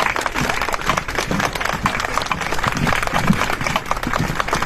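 Audience applauding, many hands clapping at once, with faint crowd voices underneath.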